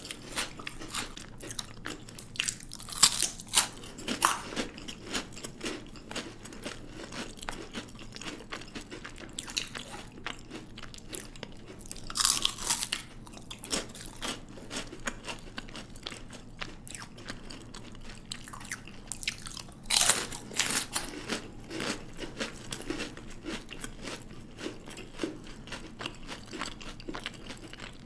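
Chocolate being bitten and chewed: a few loud crunchy bites, about 3, 12 and 20 seconds in, each followed by a run of small crackling chews.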